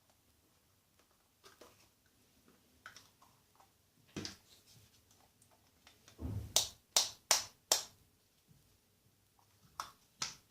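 Light clicks and taps of hands handling the spiders' shipping containers and packaging, with a quick run of about five sharp clicks or knocks around the middle and a few more near the end.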